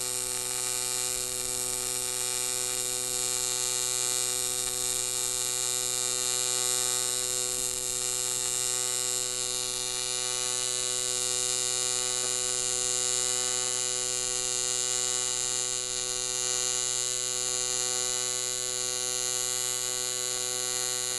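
AC TIG welding arc on aluminum, a steady unbroken buzz at one constant pitch with a hiss on top: the sound of the arc's AC frequency while it welds a vertical-up fillet.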